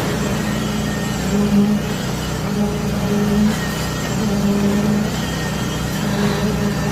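Machine engine running steadily on a concrete pour, its hum swelling and fading about once a second.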